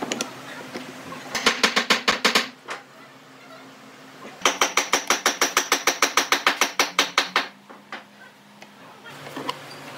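Rapid, evenly spaced mechanical clicking, about eight clicks a second, in two runs: a short burst of about a second, then a longer run of about three seconds.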